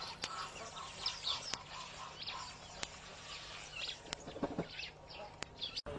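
Faint, scattered bird chirps with a few light clicks.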